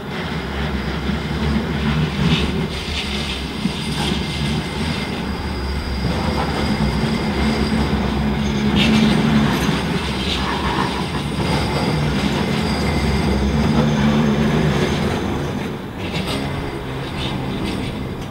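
Bombardier M5000 light-rail tram passing close by, its traction motors humming steadily as it runs along the curving track. It has occasional clicks from the wheels over the rails and a brief light wheel squeal, and the sound builds and then eases away near the end.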